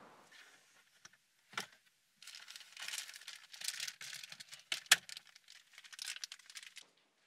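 Paper rustling and crinkling as hands rummage through the contents of a car's glove compartment, with two sharp clicks, the louder one about five seconds in.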